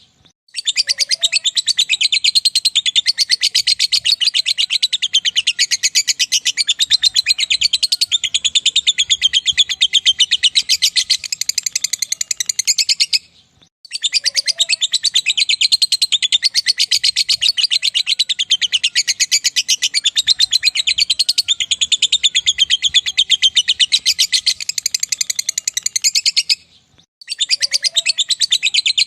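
Lovebird ngekek: a long, very rapid, high-pitched chattering trill, played as a lure to set other lovebirds singing. The same stretch repeats, breaking off briefly about 13 seconds in and again near the end.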